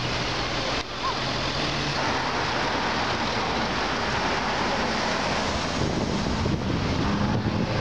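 Wind buffeting the microphone over street traffic noise. A car engine hums low in the first two seconds. Near the end a Maserati GranTurismo passing close by adds an engine note that edges upward.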